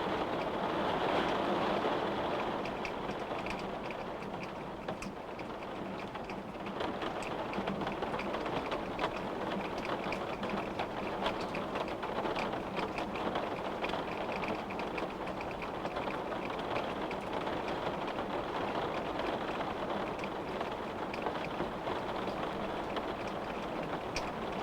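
Rain falling steadily on a window pane, a dense patter of many small drop taps that eases slightly a few seconds in before picking up again.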